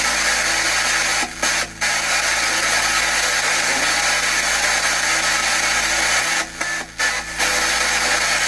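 Ghost-hunting spirit box sweeping through radio frequencies, giving out a loud, steady hiss of white-noise static. The hiss drops out briefly a few times, about a second in and again near the end.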